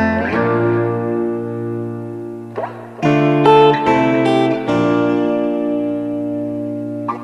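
Instrumental background music: chords struck and left to ring out slowly, with a new chord coming in about three seconds in.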